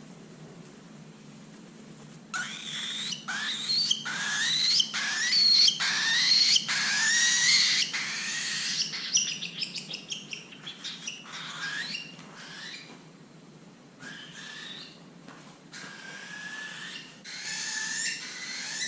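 Young pet cockatiel calling: after a couple of quiet seconds, a rapid run of short, rising, shrill calls, loudest through the middle, then fainter, sparser calls toward the end.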